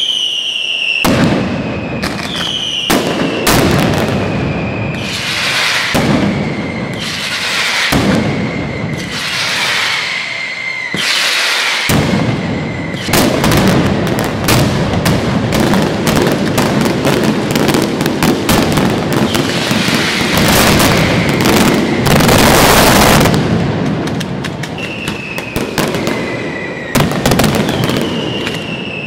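Mascletà: strings of firecrackers going off in rapid bangs, with repeated falling whistles in the first half and again near the end. From about halfway the bangs merge into one unbroken barrage, loudest about three-quarters of the way through, then thin out.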